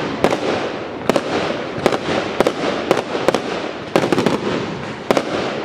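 Fireworks display: aerial shells bursting in a quick irregular series of sharp bangs, about ten in a few seconds, with steady noise continuing between them.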